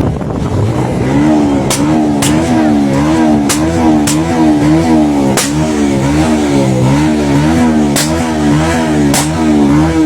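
Bajaj Pulsar 150 single-cylinder motorcycle engine revved in quick repeated throttle blips, pitch rising and falling about twice a second. Sharp exhaust pops crack out about eight times at irregular moments, the 'misfire' popping of the exhaust.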